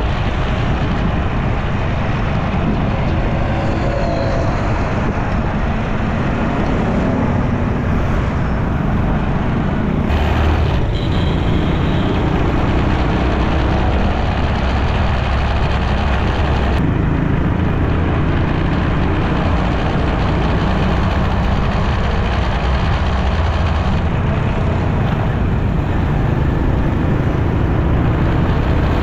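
Steady road noise from riding a motorcycle through city traffic: a constant low wind rumble on the microphone, mixed with the engines of surrounding motorbikes, an auto-rickshaw and cars.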